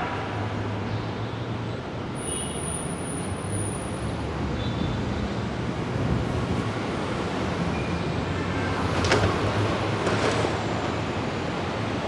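Metro-North commuter train running through the station: a steady rumble with a brief thin high squeal about two seconds in and two sharp clanks near the end.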